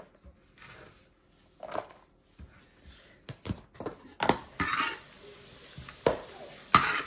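Kitchen utensils and dishes clattering: scattered short knocks, with louder ones about four seconds in and near the end.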